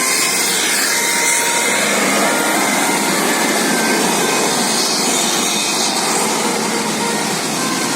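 Steady, loud rushing noise of road traffic, with vehicles passing close by.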